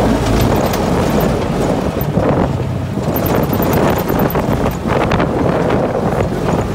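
Side-by-side off-road vehicle driving on a rough dirt road, heard from inside its open cab: a steady engine and tyre rumble with wind buffeting the microphone, and frequent short rattles and knocks from the bumpy track.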